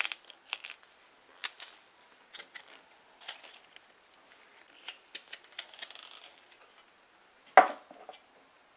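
Paring knife peeling a raw potato by hand: short, irregular scraping clicks as the blade shaves off the skin. A louder knock near the end as a knife cuts down onto the wooden cutting board.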